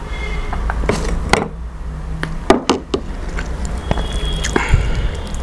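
Close-miked sounds of eating by hand: sips from a glass of juice, a few sharp knocks around the middle, and fingers squishing into rice and red spinach saag, over a steady low hum.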